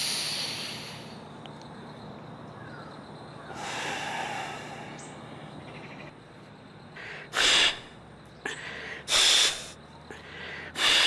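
Forceful breaths blown out through the nose while rinsing the nostrils with warm salt water (jala neti), clearing the water out. A long breath fading away at the start, a softer one about four seconds in, then three short, sharp blows near the end.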